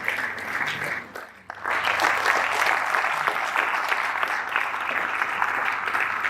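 Audience applauding with steady, dense clapping. It dips briefly about a second in, then comes back as full as before.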